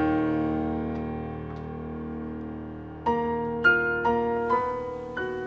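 Background piano music: a chord struck and left to fade, then a few single notes played one after another from about three seconds in.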